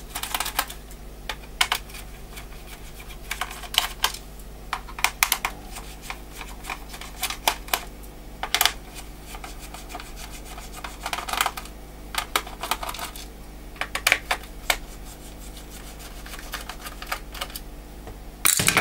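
Small screwdriver taking out the screws from a laptop's plastic bottom case: irregular clusters of light clicks and ticks.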